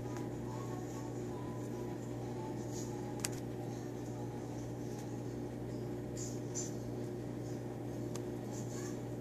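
Steady machine hum in a small room, with a single sharp click about three seconds in.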